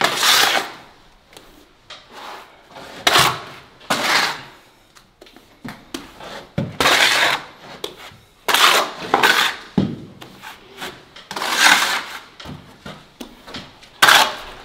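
Plastering straightedge and float scraping and smearing fresh interior plaster across a wall, filling the holes left after spraying: a series of short scraping strokes, about one every second or so.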